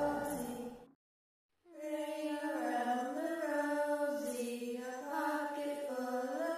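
Slow, unaccompanied singing by one voice, holding long notes that glide gently up and down. Before it, the preceding music fades out in the first second and there is a short gap of silence.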